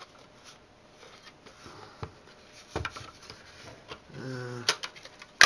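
Plastic case of a Linksys wireless router being pried apart by hand: scattered light clicks and taps, then a sharp snap near the end as a plastic clip pops loose.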